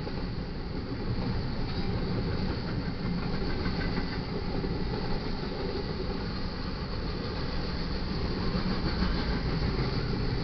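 BNSF intermodal freight train rolling past, a steady noise of wheels running on the rails.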